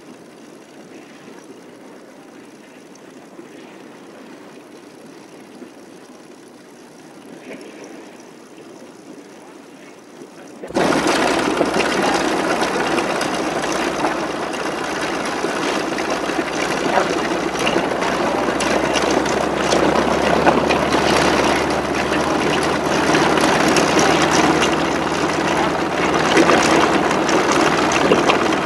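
A low hiss for about ten seconds, then a sudden cut-in of loud, steady aircraft engine noise: a P-47 Thunderbolt's radial engine running on deck with its propeller turning.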